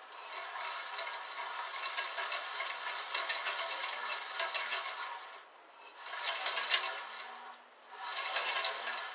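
The upper wheel and blade of a 9-inch Mastercraft bandsaw turned by hand, giving a dry rubbing whir with fine ticking as the blade runs over the wheel. There is one long spin of about five seconds, then two shorter ones. This is the hand rotation used to check that the blade rides centred on the wheel.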